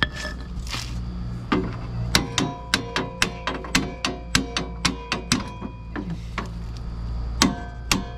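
Hammer striking the steel deck-mounting pin of a 1971 John Deere 140 riding mower to knock loose a pin that won't pull out by hand: rapid ringing metal blows, about four a second, in two runs with a pause of about two seconds between them.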